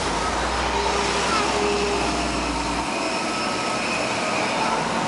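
Steady noise of road traffic with a crowd chattering faintly in the background; a low rumble drops away about three seconds in.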